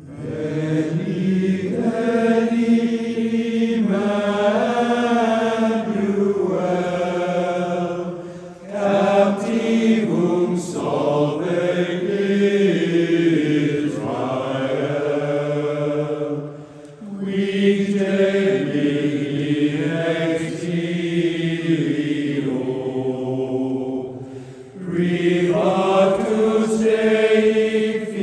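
A cappella barbershop chorus singing a slow hymn in long held chords, in phrases with short breaks between them.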